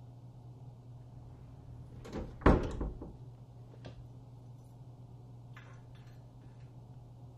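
A door shutting with one sharp knock about two and a half seconds in, over a steady low hum; a few faint clicks follow.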